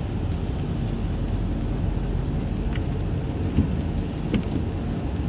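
Steady rain falling, with a low continuous rumble underneath and a few light taps.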